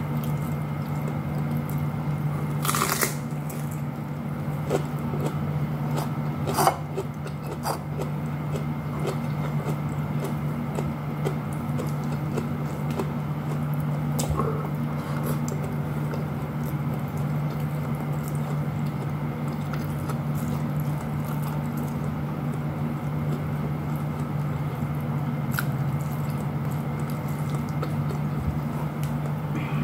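A person eating with their hands: chewing, with small clicks and taps of fingers and food against a plate, a few sharper clicks in the first eight seconds. A steady low hum runs underneath throughout.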